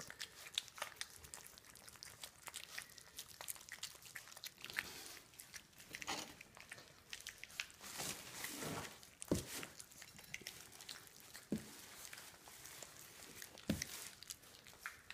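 Three four-week-old puppies eating soft wet puppy food from plates: faint, irregular wet smacking and chewing, with a few louder knocks.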